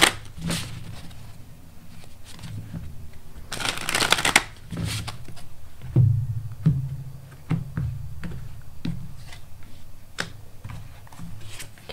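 A tarot deck being shuffled by hand, with a dense burst of riffling about four seconds in, then scattered taps and clicks as cards are drawn and laid on the table.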